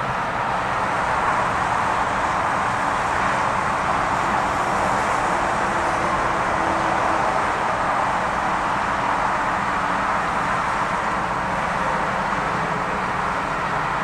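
Steady rushing roar of an airliner's jet engines as it lands and rolls out along the runway, with no clear rise or fall.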